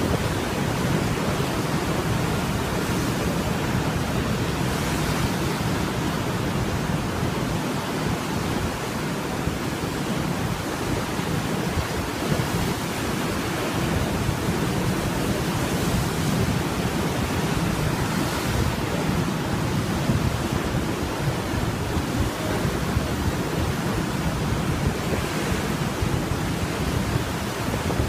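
Heavy ocean surf breaking and churning white water washing over a seaside rock pool, a steady unbroken wash of water noise. Wind buffets the microphone underneath.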